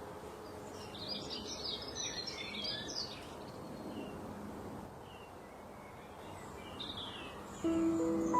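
Small birds chirping and twittering over a steady background hiss, with a busy flurry of quick high chirps about a second in that lasts around two seconds and a few more near the end. Music with sustained notes starts just before the end.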